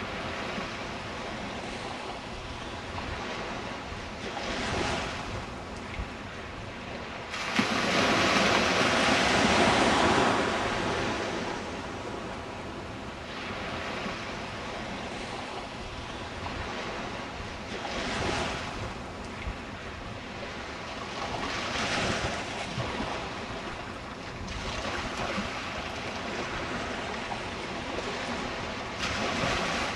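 Ocean surf breaking on the beach, with waves washing in every few seconds and the loudest stretch about eight to twelve seconds in. Wind blows against the microphone.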